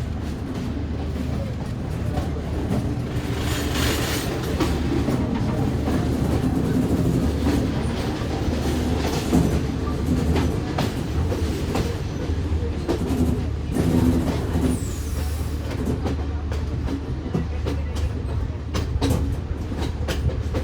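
Train running on rails: a steady low rumble with wheels clicking over the rail joints. A brief high squeal falls in pitch about fifteen seconds in.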